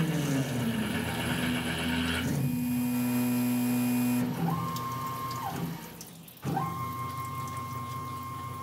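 Tormach PCNC 1100 CNC mill running with flood coolant splashing as the 60-degree V-cutter finishes a light skim pass on a steel bar and moves clear. The machine's tone shifts pitch several times, drops away briefly about six seconds in, then settles into a steady high whine.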